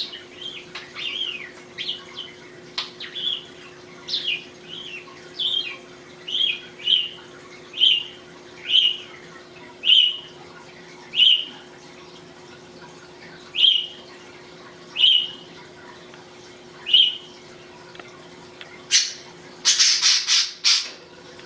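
English budgie calling in a long series of short, falling chirps, about one a second at first and then spacing out. Near the end comes a loud, harsh, noisy burst of several quick pulses.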